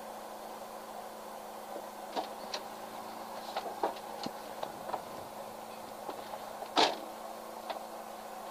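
Inside a stopped rally car: a low steady hum, with scattered clicks and knocks as the co-driver climbs back into his seat, the loudest a single thud a little before seven seconds in.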